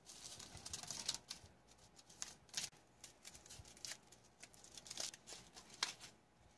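Faint, irregular crinkling and crackling of a foil MRE instant-coffee pouch being handled, torn open and held over a mug.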